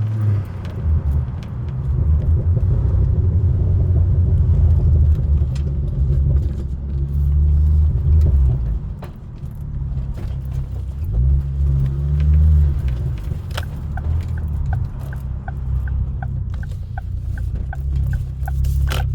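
Ford Focus ST on the move, a low engine and road rumble that swells and eases. A quick, even ticking, about three a second, joins in for several seconds near the end.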